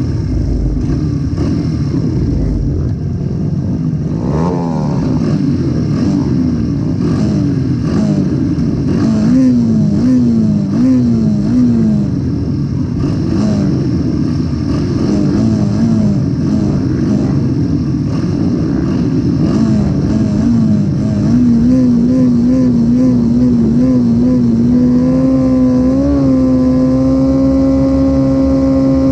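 Mini racing motorcycle engine revved on the starting grid, among other bikes' engines. Its throttle is blipped over and over, the pitch rising and falling, quicker blips near the end, then held steady at about 8,000 rpm with the bike still stationary, ready for the start.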